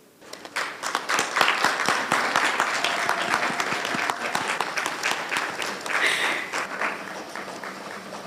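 Crowd applauding: the clapping starts about half a second in, swells quickly and thins out toward the end.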